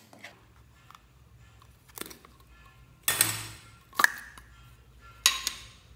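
Slime and a plastic slime container handled over a glass dish, with four sharp knocks and clinks spread about a second apart. The loudest two come in the middle, one of them leaving a short ring.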